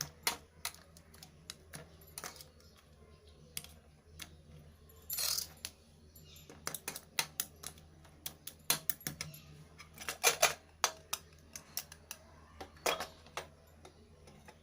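Kitchen utensils clicking and clinking irregularly as ground tulsi-leaf paste is mixed with water and strained into juice, with a short hiss about five seconds in.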